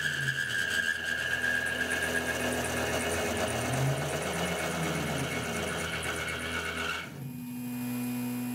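A CNC mill's spindle turning a 60-degree single-form V thread mill that is cutting threads into a steel bar under coolant, with a steady high-pitched cutting whine. About seven seconds in the whine stops suddenly, leaving the lower steady hum of the running machine.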